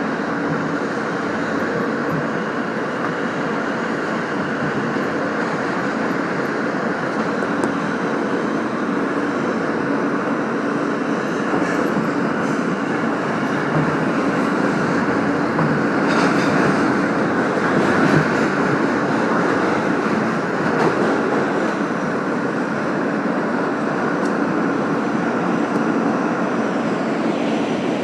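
Subway train running along the track, a steady rumble of the moving car with rail and wheel noise.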